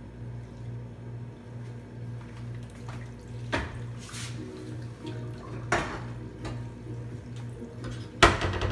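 Water and dishes at a kitchen sink, with three sharp splashes or clatters, the loudest near the end, over a low hum that pulses about twice a second.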